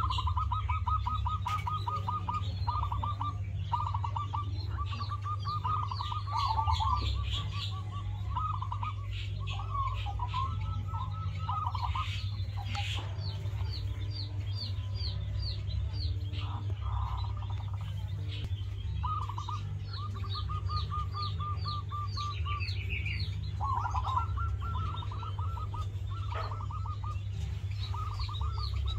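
Zebra doves (perkutut) cooing in an aviary: repeated runs of quick, even staccato notes a second or so long, one after another. Higher chirping of other small birds runs alongside, over a steady low rumble.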